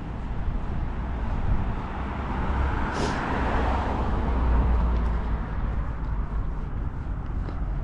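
A car passing by on the street: its tyre and engine noise swells to a peak about four seconds in, then fades away.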